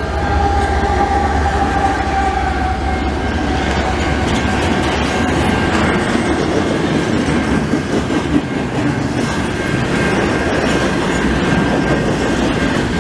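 Canadian Pacific freight train passing close by: a mid-train diesel locomotive (distributed power unit) goes by with a low engine drone that fades over the first few seconds, then double-stack container cars roll past with steady wheel-on-rail noise and a thin high whine.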